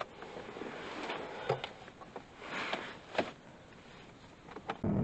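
A few faint, scattered light knocks and rustles of handling, then music starts abruptly near the end.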